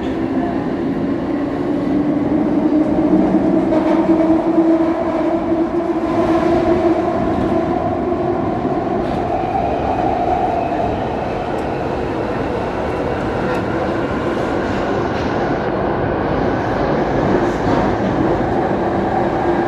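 London Underground Jubilee line 1996 stock train running, heard from aboard: a steady rumble of wheels on rails with the whine of the traction motors drifting slowly up and down in pitch.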